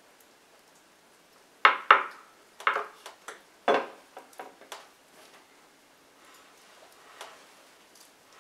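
Hands working a very wet multi-grain bread dough in a ceramic bowl: a run of sharp slaps and knocks, the loudest a little under two seconds in, thinning out by about five seconds, then softer, quieter handling of the dough.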